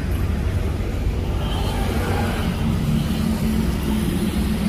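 Jet airliner's engines at takeoff power during the takeoff roll: a steady low rumble.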